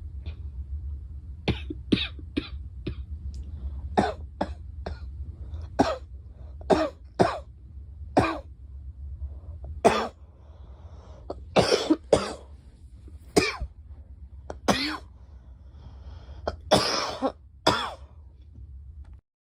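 A girl coughing over and over, about eighteen short coughs in single hacks and quick pairs, starting about a second and a half in. The last few near the end are longer and stronger. A low steady hum runs underneath and cuts off just before the end.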